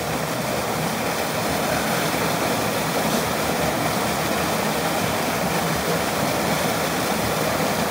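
Waterfall rushing steadily: an even, unbroken water noise.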